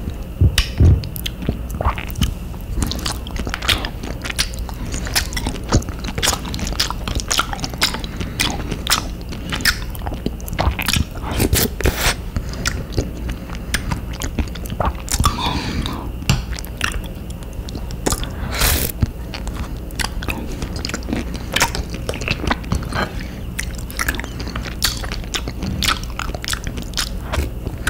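Close-up eating sounds: someone chewing spoonfuls of avocado ice cream, with wet mouth clicks and smacks coming irregularly throughout, over a steady low hum.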